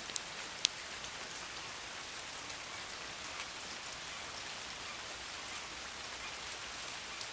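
Steady rain falling on standing floodwater and wet pavement, an even hiss, with two sharp ticks in the first second.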